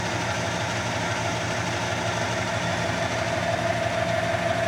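Clausing 2275 20-inch variable-speed drill press running steadily: the 1½ hp three-phase motor hums, and a whine from the drive grows a little stronger near the end.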